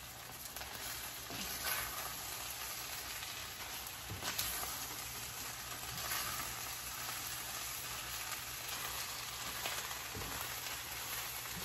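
Chopped chicken sisig sizzling steadily in a frying pan while it is stirred with a wooden spatula, with a few sharp knocks of the spatula against the pan.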